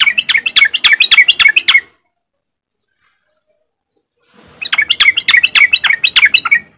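Yellow-vented bulbul (trucukan) giving its 'riwik' call. It comes as two bursts of quick, rising, repeated notes, each about two seconds long, with a pause of a little over two seconds between them.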